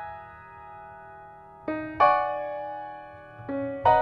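Slow background piano music. A chord fades away over the first second and a half, then notes are struck in pairs, a little under two seconds in and again near the end, each ringing and dying away.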